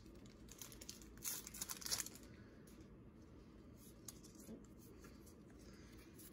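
Foil wrapper of a Pokémon card booster pack being torn open and crinkled, faint, with a louder stretch of tearing about a second in and softer rustling after.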